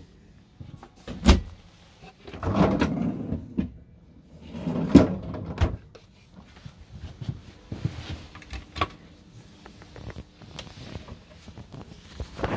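Cupboard doors and drawers in a motorhome interior being opened and shut. There is a sharp knock about a second in, longer sliding, scraping sounds around three and five seconds, then lighter clicks.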